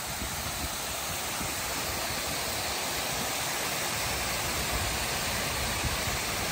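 Water cascading down stepped stone walls into a pool: a steady, even rush of falling water.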